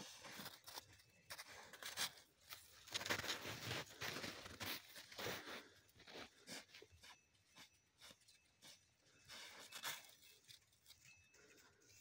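Kangal shepherd dog working its muzzle in crusted snow at close range: irregular crunching and tearing sounds, thickest a few seconds in, with another flurry later on.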